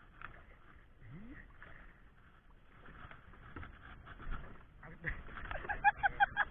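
Water sloshing and slapping around a small fishing boat in a chop. Near the end comes a quick run of short, squeaky chirps, several a second, louder than the water.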